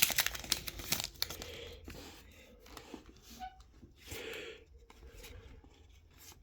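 Foil wrapper of a trading-card pack being torn open and crinkled. The crackling is densest in the first second or so, then gives way to softer, scattered rustling.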